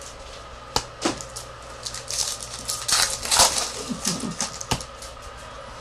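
Trading cards and foil pack wrappers being handled: crisp rustling with a few sharp clicks and taps, over a faint steady hum.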